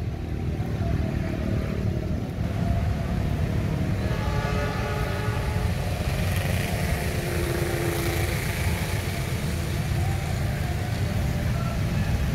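Steady low rumble of vehicles beside a railway line as a train comes closer on the tracks, with a faint higher whine about four seconds in.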